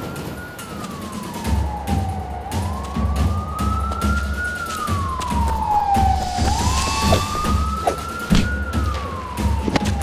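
A siren wailing, its pitch rising and falling slowly about once every four seconds. A pulsing low beat comes in under it about one and a half seconds in, with a sharp hit near the end.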